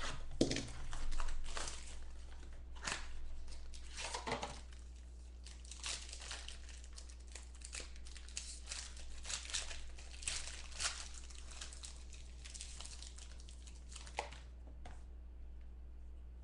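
Plastic wrapping crinkling and tearing as a mini box of trading cards is unwrapped and opened. Loudest in the first few seconds, then lighter, scattered crackles.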